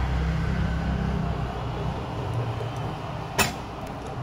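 Steady low background rumble of a workshop, with one sharp click about three and a half seconds in.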